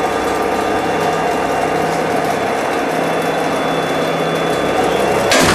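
Elevator traction hoist machine running steadily, its motor and drive sheave humming. Near the end comes a sudden sharp clunk as the speed governor trips the safety gear to lock the car, which means the safety device worked properly.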